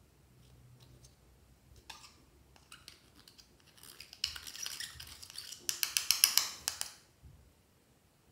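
Metal fork scraping and breaking up pressed eyeshadow in its small plastic pan: a run of dense, scratchy clicks that builds from about two seconds in, is loudest just before it stops about a second before the end.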